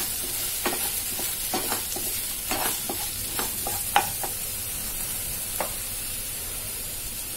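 Wooden spatula stirring and scraping onions and ginger-garlic paste as they fry in oil in a kadhai, over a steady sizzle. The scraping and knocking stop about four seconds in, leaving the sizzle with one more light tap.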